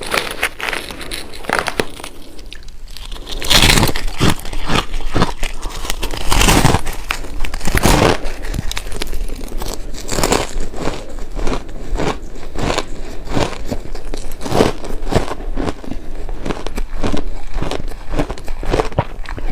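Close-up crunching of buckwheat shaved ice being bitten and chewed, lighter at first, then loud, dense crunches from about three seconds in.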